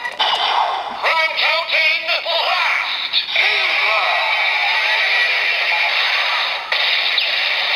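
Kamen Rider Zero-One toy Progrise Key sound effects playing: an electronic, synthesized voice call over music, then a sustained electronic tone from about three seconds in.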